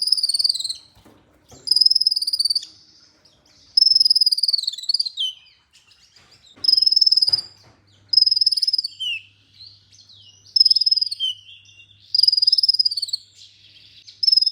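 Kolibri ninja (Van Hasselt's sunbird) singing: high-pitched, slightly falling trilled phrases about a second long, repeated every one and a half to two seconds, with softer twittering between them.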